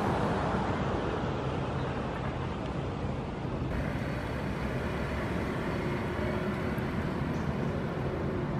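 An SUV driving slowly by, over steady outdoor traffic noise.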